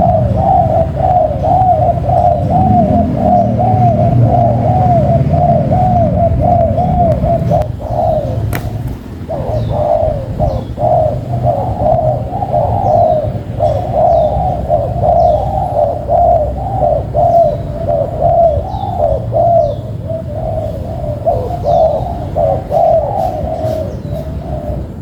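Spotted doves cooing continuously, their rapid repeated coos overlapping. A low hum runs underneath for the first eight seconds, and short, high, falling chirps of a small bird come in from about ten seconds on.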